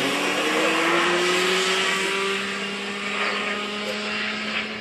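Small gas-turbine engine of a radio-controlled model jet in flight overhead: a steady rushing jet noise with a whine, one tone slowly rising in pitch, growing fainter over the last couple of seconds.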